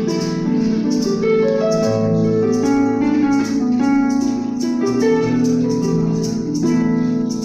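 Harp music: a large blue harp plays a flowing melody over ringing low notes. Short rattling shakes recur about twice a second over the harp.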